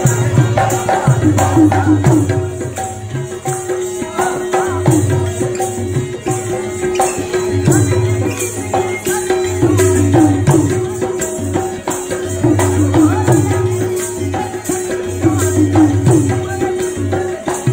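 Rajasthani folk dance music: hand drums and jingling percussion beat a steady rhythm under a held drone tone and a short, repeating melody.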